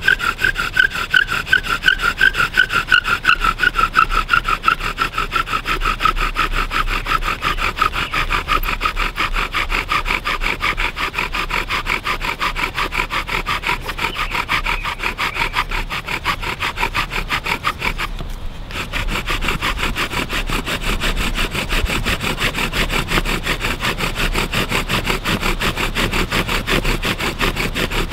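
Bow drill friction fire: a wooden spindle spun back and forth by a bow, grinding and squeaking in the hearth board with fast, even strokes. There is a brief break about two-thirds of the way through.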